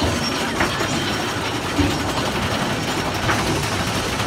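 Big Thunder Mountain Railroad mine-train roller coaster running on its track, heard from on board the train: a steady, dense mechanical rattle and clatter from the cars and wheels.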